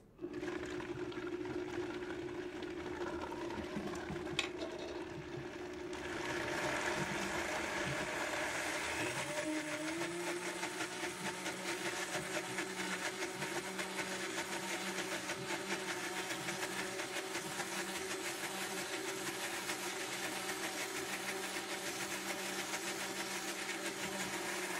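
Vita-Mix 5200 blender motor switched on at low speed and run up while blending pesto. It steps up in speed and loudness about six seconds in, rises a little again a few seconds later, then runs steadily at high speed.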